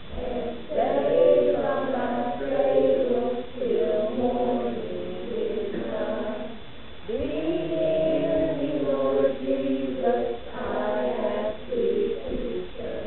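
A small choir of children and teenagers singing together, with a long held note about seven seconds in.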